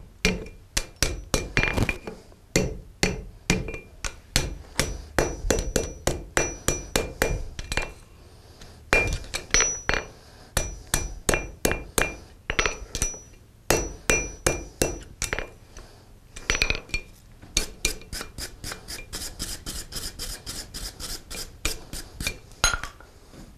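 Blacksmith's hand hammer striking a hot iron horseshoe on an anvil, the blows coming about two to three a second with the anvil ringing after each, broken by a few short pauses. Near the end the blows turn lighter and quicker as the shoe is worked on the anvil's horn.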